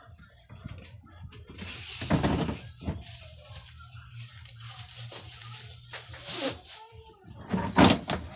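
Handling noises from a washing machine repair: a corrugated plastic drain hose being fitted and the machine's plastic housing being knocked and scraped, in a few separate bursts, the loudest near the end.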